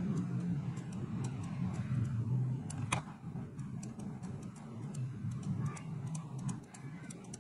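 Computer mouse button clicking irregularly, a few clicks a second, with one sharper click about three seconds in, over a low background hum.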